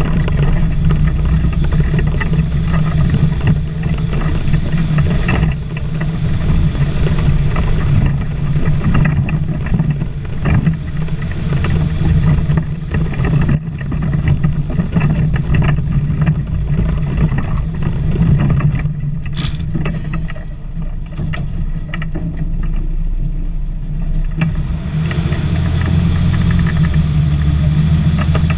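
STAR 660 6x6 military truck's engine running steadily under load as it drives slowly over rough ground, heard from inside the cab, with frequent short knocks and rattles. The engine eases off about two-thirds through and pulls harder again near the end.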